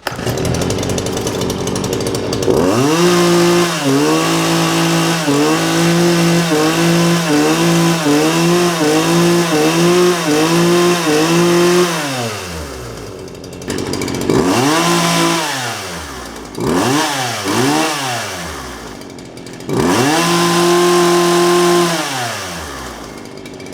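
Poulan 2150 34cc two-stroke chainsaw running: idling, then revved hard and held at high speed with regular dips in pitch about once a second, dropping back, then given shorter revs, a few quick throttle blips, and one more held rev before settling to idle near the end.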